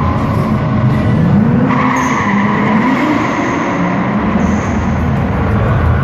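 Drift car's engine revving up and down as it slides, with its tyres screeching, the screech growing louder about two seconds in.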